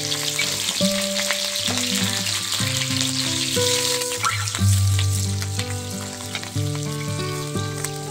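Green chillies and other chopped pieces sizzling and spitting in hot oil in an iron kadai, with the clink and scrape of a metal spatula stirring them.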